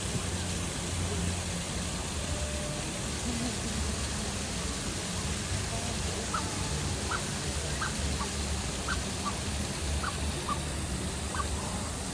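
Steady outdoor background noise with faint distant voices, and a bird chirping: a run of about eight short, sharp chirps starting about halfway through.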